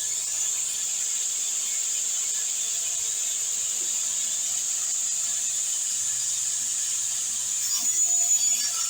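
Sliding table saw running steadily, its three-phase motor giving a low hum under an even high whine, which grows a little louder and uneven near the end.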